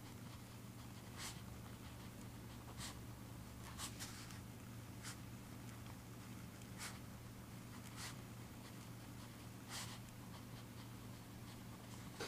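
Writing by hand on paper: short, faint scratchy strokes, roughly one every second, with pauses between them, over a steady low hum.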